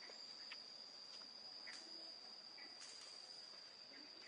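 Faint, steady, high-pitched insect chirring, a single unbroken tone like a cricket, with a few faint scattered ticks.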